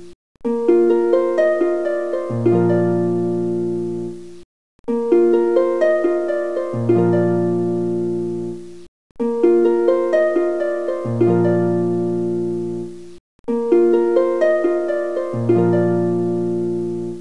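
Background music of plucked-string notes over a low bass line. The short phrase repeats about every four seconds, with a brief break between repeats, like a looped track.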